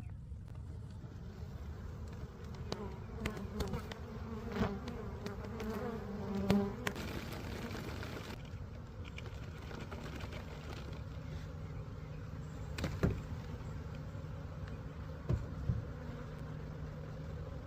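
Mass of honeybees buzzing in a steady hum, with a few sharp clicks and knocks scattered through.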